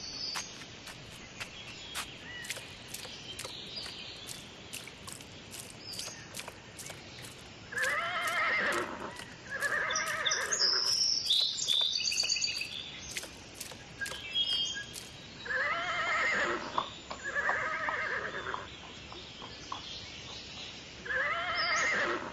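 Horse neighing: five whinnies, coming roughly in pairs from about eight seconds in. Before them, a run of quick, evenly spaced clicks, about three a second.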